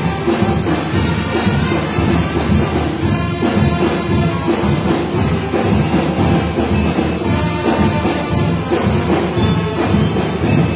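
Marching band playing: trumpets and a sousaphone over bass drums and other percussion keeping a steady beat.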